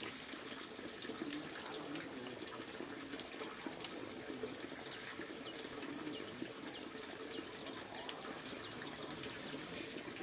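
Steady running water, with a bird repeating a short falling call about twice a second through the second half.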